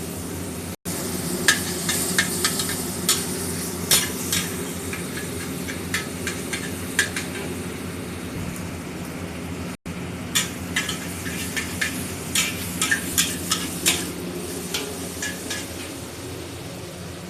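Kwetiau noodles with egg being stir-fried in a pan: a steady sizzle with frequent, irregular sharp clinks of the spatula against the pan. The sound cuts out for an instant twice.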